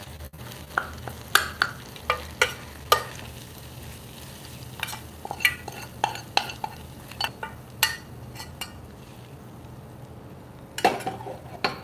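A steel spoon clinks and scrapes against a small steel pan as a hot oil tempering of mustard seeds, cumin, dried red chillies and curry leaves is scraped out onto tomato chutney in a steel pot, with a light sizzle, then stirred in. The clinks come one at a time throughout, with a quick cluster near the end.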